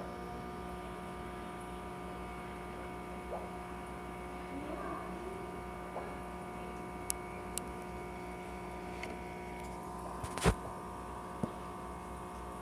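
Steady electrical hum made of several steady tones, from aquarium air pumps running the tanks' sponge filters. A few faint clicks, and one sharp knock near the end.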